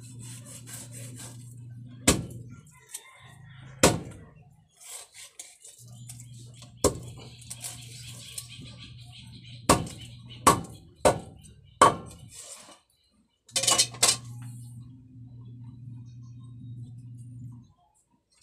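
Large kitchen knife chopping through a grouper on a wooden chopping board: about nine sharp chops at uneven intervals, including a quick run of four in the middle and a close pair later on. A low steady hum comes and goes underneath.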